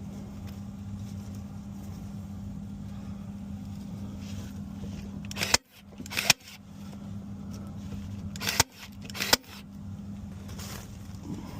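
QuietCool whole house fan running with a steady hum, broken by four sharp knocks or clicks in the middle of the stretch.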